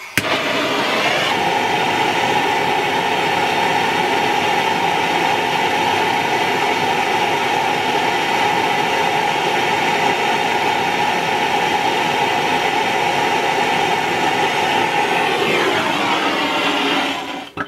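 Handheld gas torch on a yellow cylinder burning with a loud, steady hiss while heating a fluxed copper cap to sweat the solder joint. It starts abruptly and cuts off shortly before the end.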